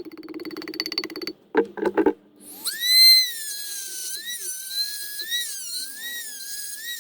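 Power tool with a worn diamond cutting disc cutting into a ceramic pot. A buzzing grind lasts about the first second, two short bursts follow, then from about two and a half seconds in a high whine runs on, its pitch dipping and recovering as the disc bites.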